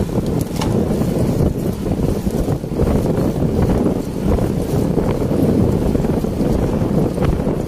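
Wind buffeting the microphone of a camera carried on a moving road bicycle, a steady loud rumble that goes on throughout.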